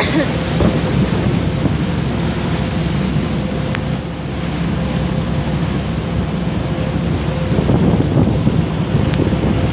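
Wind buffeting the microphone and water rushing past a moving yacht: a steady rush of noise, strongest in the low end, with a faint steady hum underneath.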